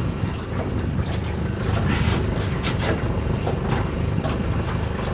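Outboard motor of a small motorboat running steadily while the boat moves along, heard from the helm under the canopy.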